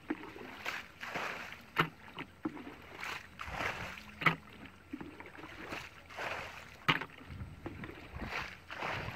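Shallow muddy water sloshing and splashing in repeated strokes, about one a second, with a sharp knock every two and a half seconds or so.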